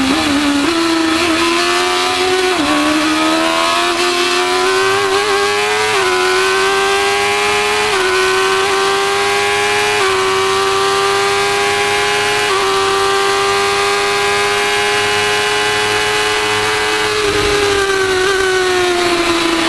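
Formula 1000 race car's 1000cc motorcycle engine at full throttle on track, heard from the cockpit. Its pitch climbs over the first several seconds with a few short steps at gear changes, holds high and steady, then falls near the end as the driver lifts.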